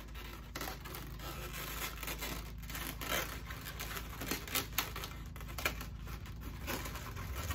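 Latex twisting balloons of a balloon sculpture being handled, with irregular rubbing and crinkling as the balloons are gripped and pressed against each other.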